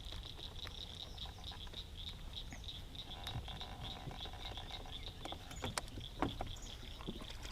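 Night chorus of calling animals: a steady, high, rapidly pulsing trill of about four to five pulses a second, with a few faint knocks in the second half.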